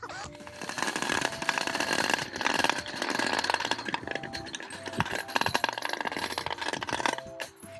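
Plastic toy bowling pins rattling and scraping against a metal chain-link fence: a dense, continuous clatter of rapid small clicks.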